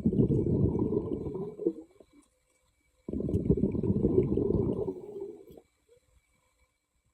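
A diver's exhaled breath bubbling out underwater, heard as two long, low bubbling rushes of about two seconds each with a pause between.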